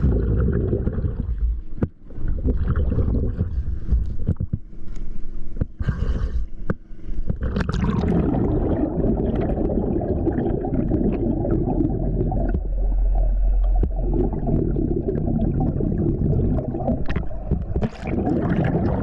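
Water bubbling and sloshing close to the microphone, with scattered knocks in the first few seconds, then a steadier, denser bubbling.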